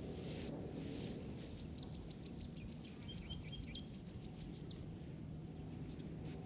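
A bird singing a fast trill of short, high, evenly repeated notes, about six a second, starting about a second in and lasting some three seconds, over a steady low background rumble of wind and forest noise.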